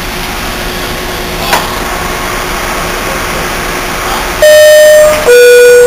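R68A subway train's door-closing chime: two loud electronic tones, a higher one about four and a half seconds in, then a lower one. It is the warning that the doors are about to close. Before it there is a steady hum of the train standing in the station, with a brief knock about one and a half seconds in.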